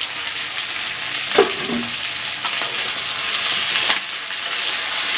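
Chicken pieces and potatoes sizzling as they fry in a kadai while a spatula stirs them, scraping through the pan, with a couple of sharper knocks of the spatula on the pan, about a second and a half in and near four seconds.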